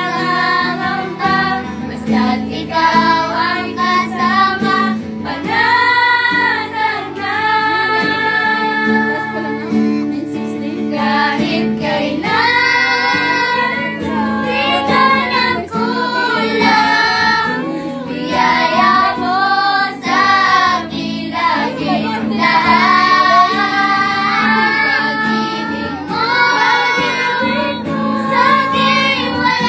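A group of children and women singing a Tagalog Christian worship song together, addressed to Jesus, with an acoustic guitar strumming along underneath.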